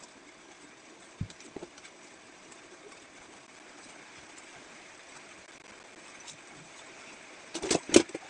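Clear plastic dome lid pressed onto a plastic milk tea cup, a quick cluster of sharp snapping clicks near the end. A couple of lighter knocks from the cups and table come earlier, over a steady low hiss.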